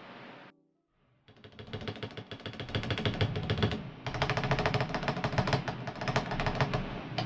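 Stabilized keys on an MK870 mechanical keyboard pressed rapidly and repeatedly to test the stabilizers, giving a dense run of keystroke clacks. The clacks start about a second in, after background music fades out, and pause briefly near the middle.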